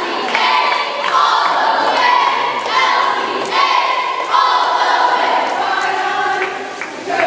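Cheerleading squad shouting a cheer in unison, in short chanted phrases.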